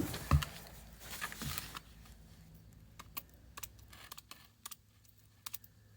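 Scattered light clicks and taps from hand tools and fittings being worked on gas piping, with a thump about half a second in.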